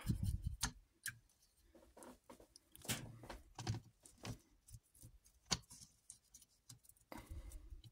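A small paintbrush scrubbing miniatures in a plastic ultrasonic-cleaner basket, working loosened paint off them: faint, irregular scratches and light clicks of bristles and plastic.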